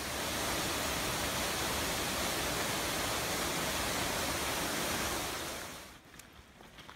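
A small woodland stream's waterfall, its water rushing in a steady hiss. The sound drops away about six seconds in, leaving only faint ticks.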